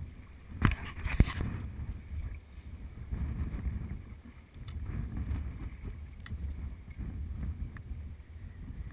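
Wind buffeting the microphone on a small boat, with choppy water lapping at the hull. Two sharp knocks come about a second in.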